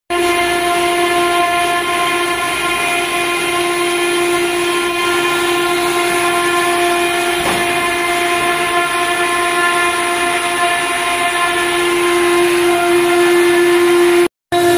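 Stone CNC router's spindle running at speed, a steady whine with several overtones. It cuts out briefly near the end.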